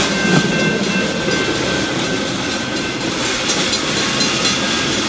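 Steel wheels of a pedal-powered rail bike rolling along railroad track, a steady noise.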